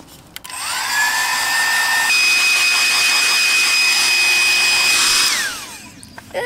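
Yes Beauty Pocket Air Jet compact folding hair dryer (750 W) switched on: its motor whines up to speed, steps up to a higher, louder speed about two seconds in, and blows steadily. It is switched off a little after five seconds in, the whine falling away as it spins down. Quite loud.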